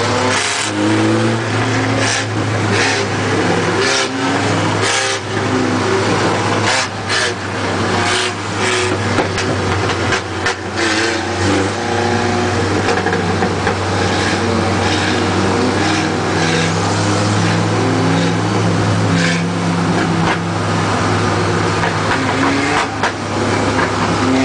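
Engine of a light-truck class race pickup heard from inside the cab, running hard around the oval, its pitch rising and falling as it revs through the turns. Frequent short clatters and rattles sound over it.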